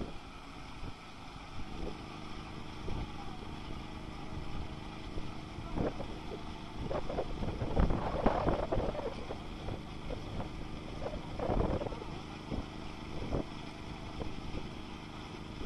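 Small engine of a portable water well drilling rig running steadily while it drills, with gusts of wind noise on the microphone a few times.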